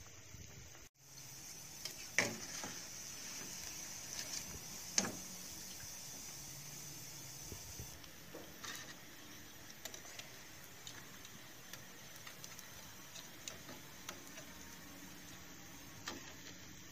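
Gemblong (glutinous rice balls) deep-frying in hot oil, a steady sizzle that is stronger in the first half. Metal tongs and a perforated skimmer clink against the pan, with two sharp clinks about two and five seconds in and scattered small taps after, as the fried balls are lifted out.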